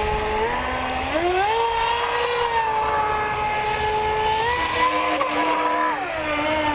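Feilun FT011 RC speedboat's water-cooled brushless motor whining at speed. The pitch climbs about a second in as the throttle opens, holds steady, then drops near the end.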